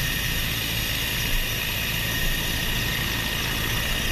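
Mi-8 helicopter running close by on the ground: a steady loud rotor and twin-turbine noise with a high, even whine over a low rumble.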